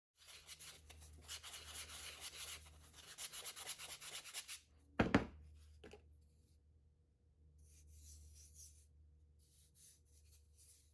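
Rubbing strokes over the primed surface of a 3D-printed plastic knob, working at a spot where the primer had not dried and got marked. A single sharp knock about halfway through, then fainter rubbing.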